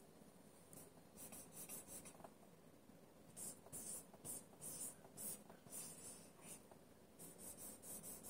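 Whiteboard marker writing letters on a whiteboard: faint, short scratchy strokes in quick clusters with brief pauses between them.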